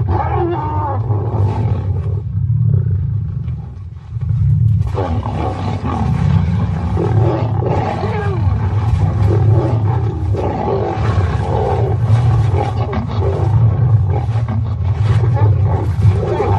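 Lionesses growling and snarling in a fight, mauling another lioness. It is a continuous deep, rumbling growl with rising and falling snarls over it, broken by a short lull about four seconds in.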